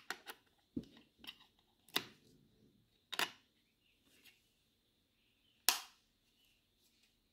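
Sharp plastic clicks from a boAt Airdopes earbud charging case being handled, as the earbuds are seated in their magnetic slots: about seven clicks at irregular gaps, with the loudest, a single snap about three-quarters through, as the lid snaps shut.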